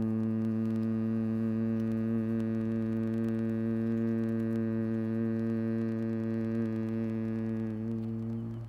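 A man humming one long, low, steady tone with closed lips on a slow exhalation, the toning of a breathwork practice. It fades and stops near the end as his breath runs out.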